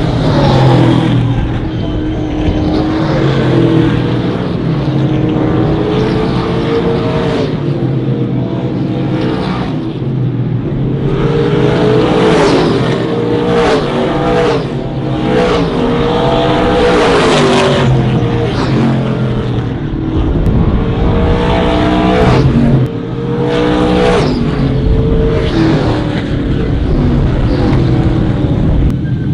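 Trans Am race cars' V8 engines at racing speed, the pitch repeatedly climbing through the gears and dropping away, several cars overlapping at times.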